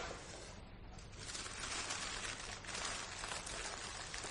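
Sound effect of a fire being made in a hearth: a dense rustling and crackling starts about a second in and carries on steadily.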